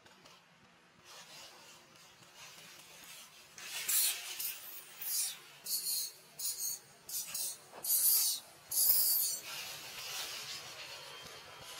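Dry leaf litter rustling and crackling as macaques shift and move on it, in a string of short rustling bursts starting about four seconds in and ending after about nine seconds.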